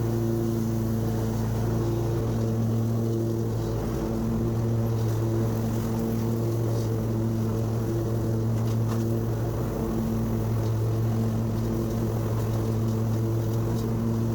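Husqvarna zero-turn mower's engine running steadily while cutting grass, a constant hum that holds one pitch.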